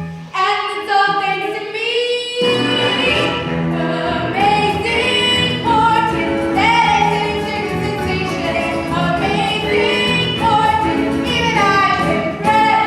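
A show tune from a stage musical: singing with musical accompaniment, with long held, sliding notes.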